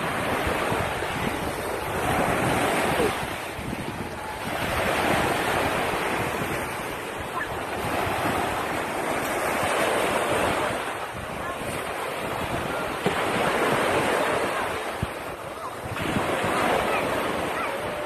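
Small waves breaking and washing up the shore, the surf swelling and easing every three to four seconds, with wind buffeting the microphone.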